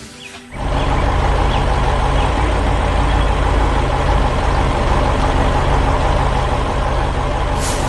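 Heavy vehicle engine running steadily, cutting in about half a second in.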